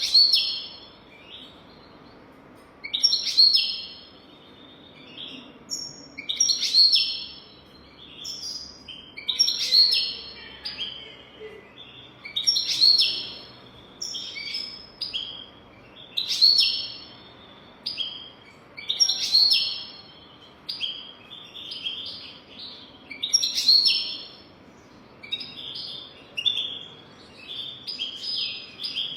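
European goldfinch singing: bursts of high twittering song, one roughly every three seconds, each phrase full of quick chirps and sharp ticks.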